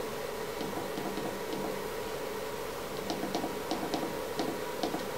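Keys clicking as they are pressed on a CNC controller's button panel, a few at first and then several a second from about three seconds in, over a steady electrical hum.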